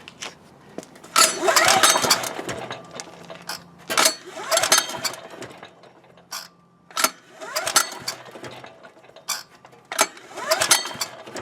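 Recoil pull starter of an ETQ DG7250LE diesel generator being yanked about four times, a few seconds apart; each pull is a sharp rattling burst as the engine turns over without catching.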